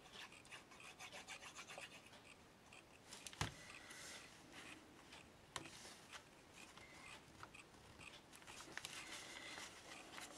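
Faint rubbing and rustling of small card pieces being handled and pressed down by fingers onto a paper tag, with two sharp clicks, one about a third of the way in and one about halfway.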